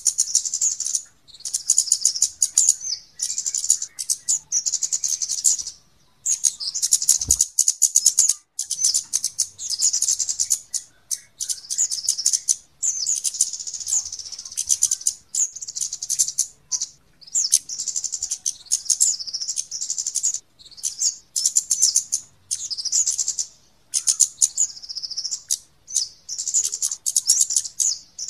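Small birds' high-pitched ticking, twittering chip calls, in rapid bouts of one to two seconds with short gaps between: a bird-lure recording for kemade, cit keres and flowerpeckers. One low thump about seven seconds in.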